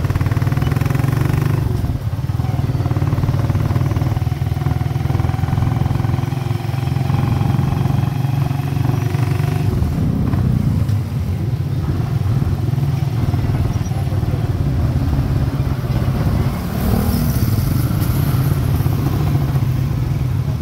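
Tricycle's motorcycle engine running steadily under way, with street traffic around it.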